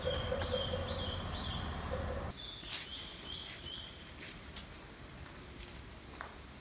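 A songbird calling: two runs of short, repeated high notes in the first three seconds, over forest ambience. A low background rumble cuts off suddenly after about two seconds, leaving quieter ambience.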